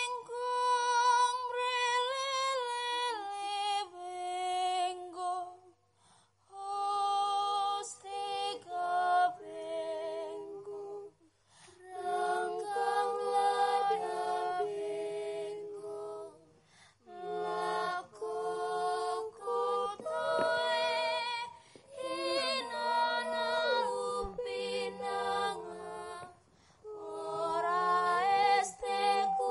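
Voices singing a slow, chant-like melody in long phrases with held notes and short pauses between them, with a second, lower voice joining partway through.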